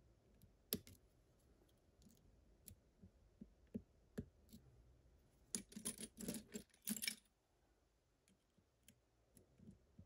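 Faint scattered metallic clicks of lock picks and a tension wrench working in a lock cylinder, with a louder run of metal tool clatter about five and a half seconds in, lasting under two seconds, as a pick is swapped from a pile of tools.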